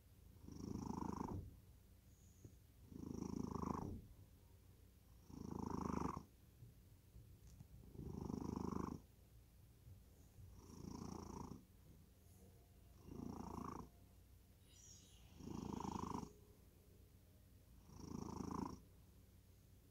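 Sleeping house cat snoring: a soft rasping snore on one phase of each breath, about one every two and a half seconds, with quiet breathing between.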